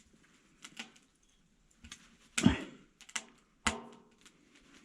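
A handful of irregular sharp clicks and small knocks, the loudest about two and a half seconds in.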